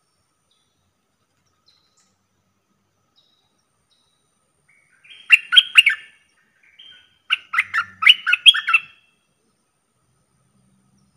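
Caged decoy bulbul singing two short phrases of quick chirping notes, the first about five seconds in and the second a second and a half later.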